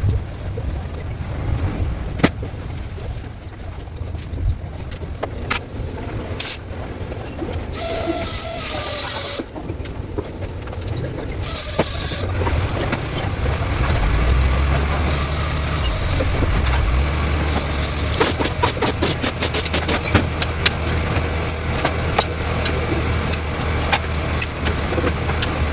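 Car engine running with a steady low hum that grows louder about halfway through, broken by several short bursts of hiss.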